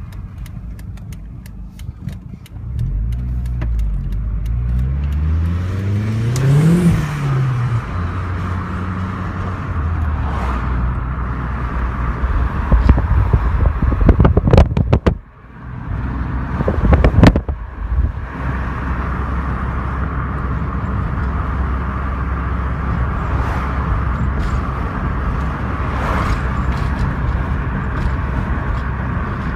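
Cabin sound of a Vauxhall Zafira GSi driving: the engine note rises under acceleration and drops at a gear change, over a steady road hum. A rapid clicking rattle is heard near the start, with a cluster of loud knocks about halfway through.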